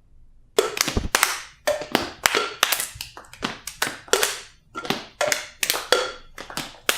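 A quick, uneven series of sharp taps, roughly three a second, starting about half a second in, each with a short ring.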